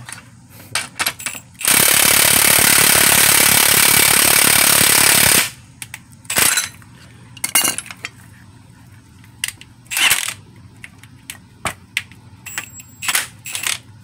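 Milwaukee cordless impact wrench hammering for about three and a half seconds, driving the threaded rod of a bearing press tool to push a new front wheel bearing into the steering knuckle. It stops suddenly, followed by scattered metallic clinks and knocks as the tool and parts are handled.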